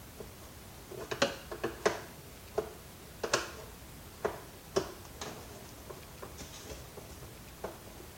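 Irregular sharp clicks and taps of a screwdriver working a screw in the plastic housing of a vacuum cleaner, about a dozen, busiest between one and five seconds in, then a few fainter ones.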